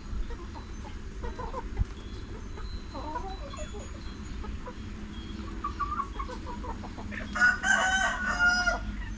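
Chickens clucking with short scattered calls, then a rooster crows once near the end, a loud call about a second and a half long.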